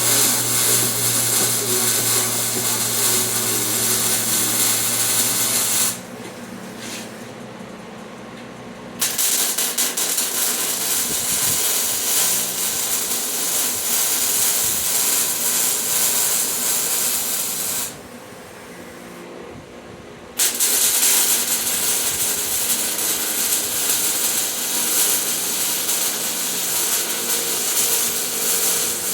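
Harbor Freight Vulcan welder's arc crackling and hissing in three long welding runs, stopping for a few seconds about six seconds in and again about eighteen seconds in.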